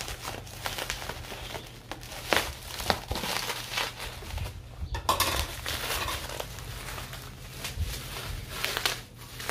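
Plastic bubble wrap crinkling and crackling as it is pulled off and unwound by hand. The crinkling is irregular, with louder patches about two and five seconds in.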